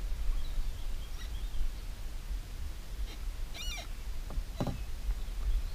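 Outdoor ambience: a steady low rumble with faint, scattered bird calls. One short, high, wavering call sounds about three and a half seconds in.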